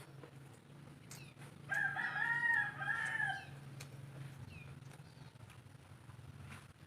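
A rooster crowing once, a drawn-out call lasting nearly two seconds, over a steady low hum.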